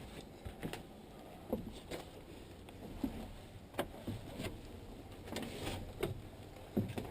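Footsteps crunching through dry leaf litter and twigs on a forest floor, in an uneven pace of short crunches and snaps, with clothing and gear rustling.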